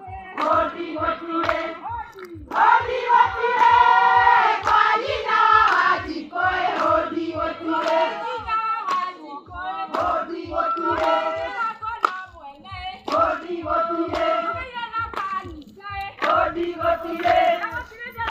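A group of women singing together in unison, accompanied by steady rhythmic hand clapping.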